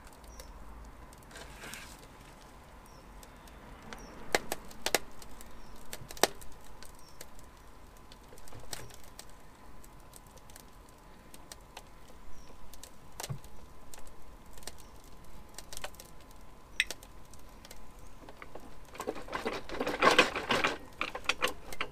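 Laminate flooring boards and the light pod beneath the tyre creaking and cracking, scattered single sharp cracks as the van's weight is let down onto them. Near the end comes a longer spell of scraping and clattering.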